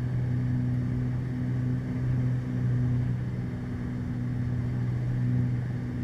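Twin-engine Beechcraft Baron's piston engines and propellers droning steadily in the cockpit at reduced power on final approach, a low even hum with a second tone above it.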